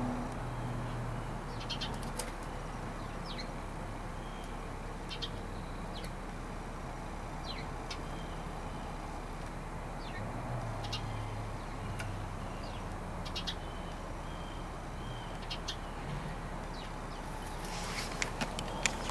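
Outdoor ambience with a steady background hiss and faint, scattered short bird chirps and ticks. A quick flurry of clicking and rustling comes near the end.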